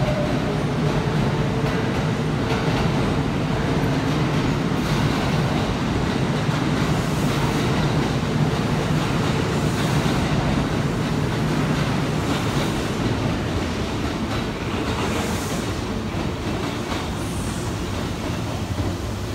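Kintetsu electric commuter train pulling out along the platform, its motors and wheels running past in a steady rumble that slowly fades toward the end.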